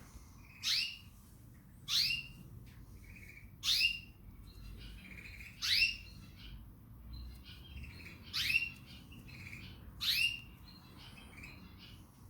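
Pet canary calling: six loud, sharp chirps spaced about one to three seconds apart, each a quick fall in pitch, with soft twittering between them.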